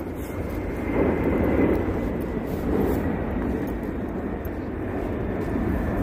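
Airplane engine noise from a plane flying near an airport: a steady low rumble with swells in loudness and a faint high steady tone.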